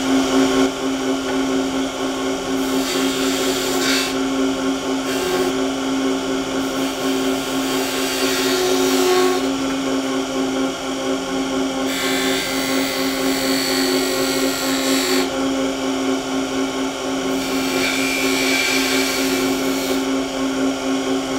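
Wood lathe running with a steady motor hum while a skew chisel cuts a V-groove into the spinning spindle. The cutting comes in several separate passes of high scraping and shaving noise over the hum.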